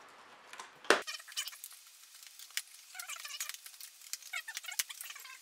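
A sharp click about a second in, then a quick run of small clicks and rattles from hands working among the internal parts of an iMac G5, mixed with short, high, squeaky chirps.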